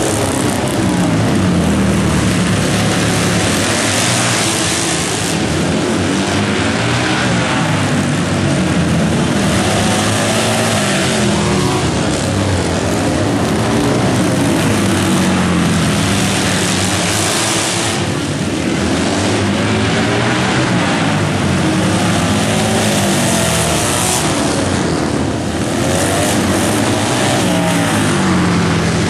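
Racing motorcycle engines running hard on a flat track, their pitch rising and falling again and again every few seconds as the bikes accelerate and back off, with several engines overlapping.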